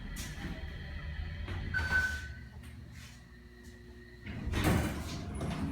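Dover Oildraulic hydraulic elevator running with a steady hum and faint whine, with a brief high tone about two seconds in. The hum cuts off suddenly about four seconds in as the car stops, followed by the doors sliding open.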